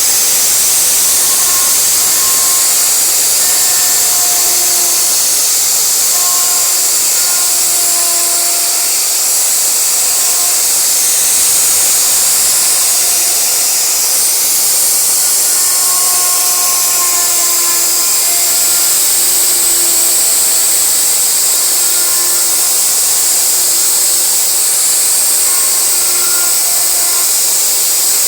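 CNC wood router running and carving wood, a steady high-pitched hiss with short tones that come and go over it.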